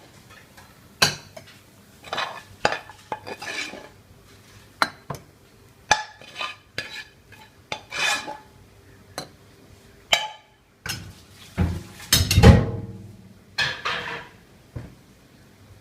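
Metal spoon clanking and scraping against cooking pots, a string of irregular knocks and scrapes with a heavier clunk about three-quarters of the way through.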